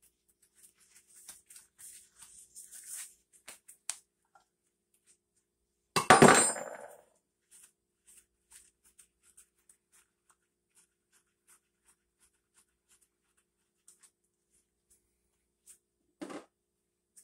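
Metal tools and parts handled on a small outboard's flywheel as the flywheel puller comes off: light scraping and clinks, one loud metallic clank about six seconds in, and a duller knock near the end.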